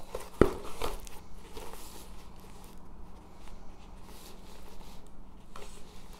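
Crinkling and rustling as a film-covered diamond painting canvas is slid and handled, with a sharp knock about half a second in and a lighter click near the end.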